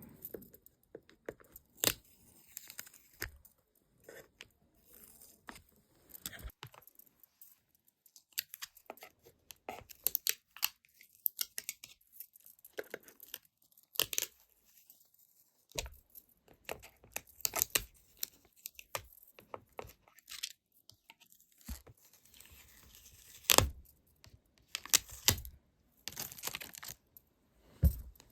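Stickers being peeled off their backing sheet close to the microphone: irregular sticky crackles and small ticks, with a louder crack late on.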